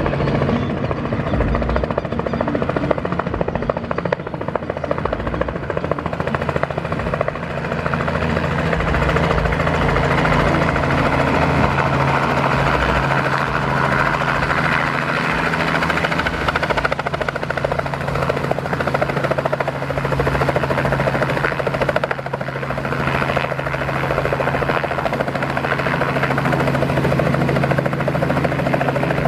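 Robinson R44 helicopter running steadily through its approach and landing: the Lycoming six-cylinder piston engine and two-blade main rotor keep up an even drone as it descends, hovers low and settles onto its skids.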